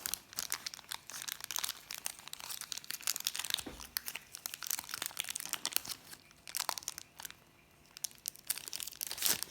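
A small packet's wrapper crinkling and crackling as it is pulled open and handled, in uneven bursts with a short lull late on and a loud crackle near the end.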